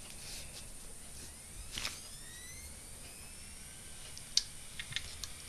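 3.5-inch hard disk drive powered up: a knock, then the spindle motor spinning up with several rising whines, then a few sharp clicks near the end, taken by the owner as the drive clacking.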